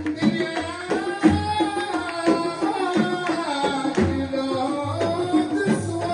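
Gulf folk song (bahri): large hand-beaten frame drums keep a steady, repeating rhythm under a man singing the melody.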